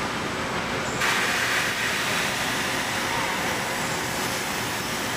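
SuperMax sanding machine running as a wooden panel is fed through it. A steady machine hum, with a sudden rise in hiss about a second in as the abrasive starts cutting the board, and the hiss carries on after that.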